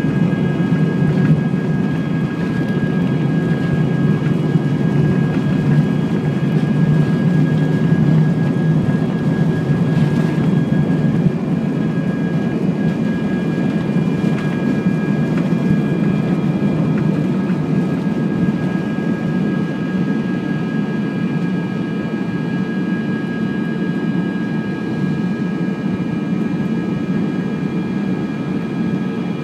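Airbus A320's turbofan engines at takeoff thrust, heard inside the cabin during the takeoff roll and climb-out: a dense low roar with a steady high fan whine on top. The low roar eases a little in the second half as the aircraft lifts off.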